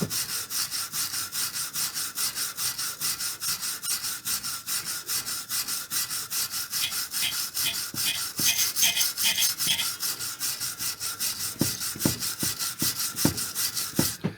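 A hand wire brush scrubbing rust off metal engine parts in quick back-and-forth strokes, about five a second.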